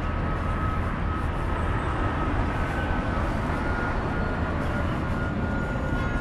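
Steady low rumble of motor vehicles in a city, with faint thin whining tones above it.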